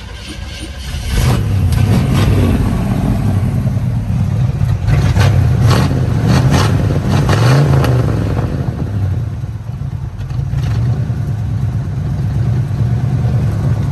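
1972 Chevrolet C10's small-block V8 running, revved up and down several times in the first half, then settling to a steadier idle.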